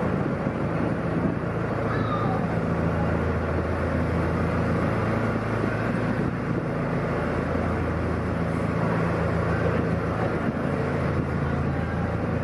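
Narrowboat engine running steadily as the boat cruises along the canal: an even low hum over a steady hiss.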